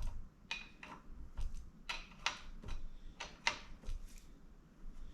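Hand tools clicking and tapping against metal while working on a bicycle's crank and crank bolt: a series of short, sharp clicks at an uneven pace, fading out about four seconds in.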